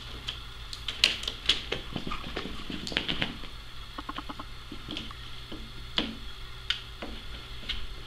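A cat batting a small toy ball around a cardboard scratcher: irregular sharp taps and knocks, the loudest about a second in and around six seconds, with a few short quick rattles. A low steady hum underneath.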